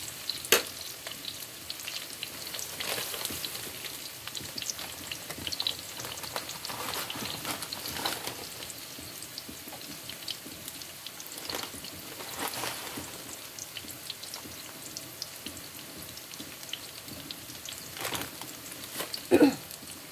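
Sliced onions sautéing in hot oil in a pan: a steady sizzle full of small crackling pops. A sharp click comes just after the start and a louder knock near the end.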